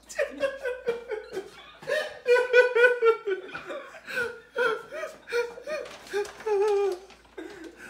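Men laughing in repeated short bursts.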